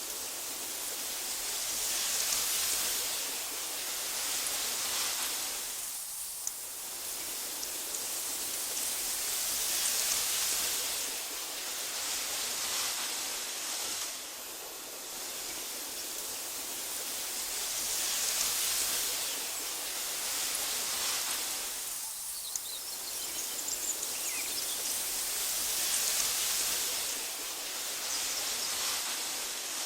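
Wind blowing through tall meadow grass, a steady hiss that swells and eases in slow gusts, dropping to lulls twice. A few faint high chirps come a little past the middle.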